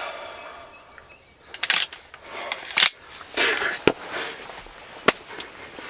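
The echo of a shotgun shot fades away, then come a few scattered short clicks, knocks and rustles.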